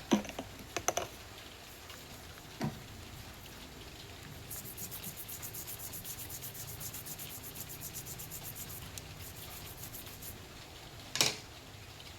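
Small handling noises: a few sharp clicks and a knock, then about five seconds of rapid, light scratchy ticking, and one more loud click near the end.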